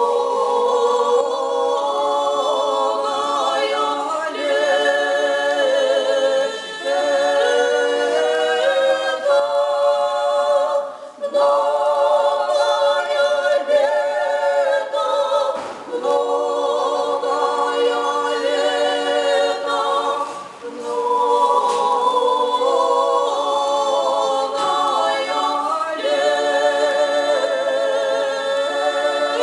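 Three women singing a cappella in close harmony, their voices held on long notes with vibrato. The singing breaks off briefly between phrases, at about 11, 16 and 20 seconds in.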